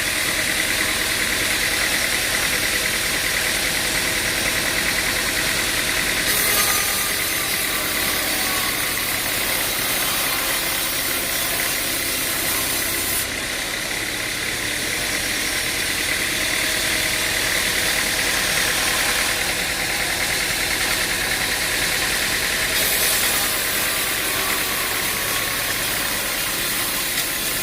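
Engine-driven machinery running steadily with a constant whine. A harsher high hiss joins in about six seconds in, drops out about halfway through, and returns near the end.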